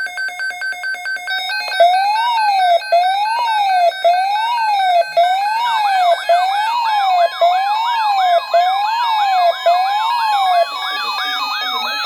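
Electronic siren tones layered over one another. A fast pulsing beep gives way about two seconds in to a rising-and-falling wail that cycles about once a second. A much faster yelp joins about halfway through, and a slowly rising tone starts near the end.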